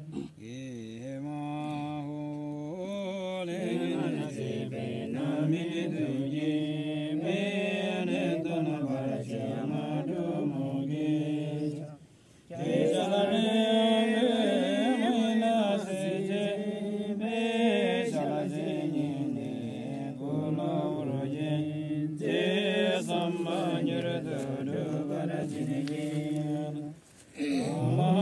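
Buddhist monks chanting prayers in a melodic recitation, broken by two short pauses for breath: one about twelve seconds in and one near the end.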